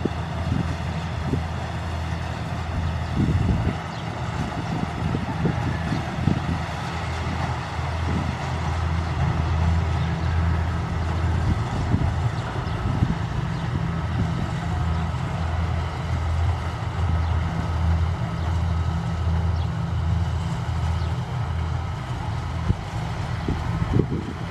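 Kubota rice combine harvester's diesel engine running steadily under load, with a constant low drone, and wind buffeting the microphone at times.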